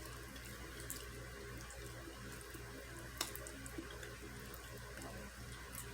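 Quiet eating sounds: a few faint mouth clicks, one sharper about three seconds in, over a steady low electrical hum and hiss.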